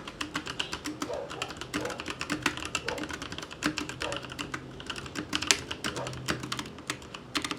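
Fast typing on a Logitech G413 TKL SE mechanical keyboard with brown tactile switches: a dense, uneven run of key clicks, many a second.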